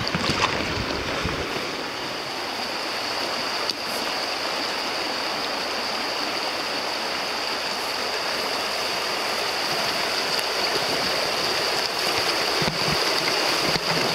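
Shallow river rushing steadily over rocks in a riffle.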